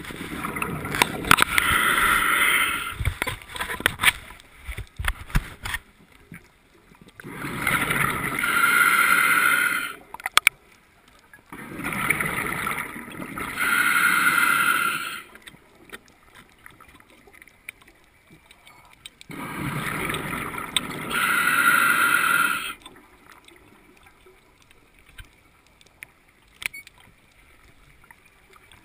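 Scuba diver breathing through a regulator underwater: four breaths a few seconds apart, each a couple of seconds of hissing air and bubbling exhaust. It goes quieter near the end.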